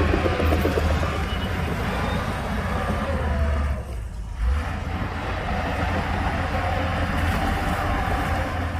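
Heavy diesel engine of earthmoving machinery running steadily with a deep low rumble, dipping briefly about four seconds in.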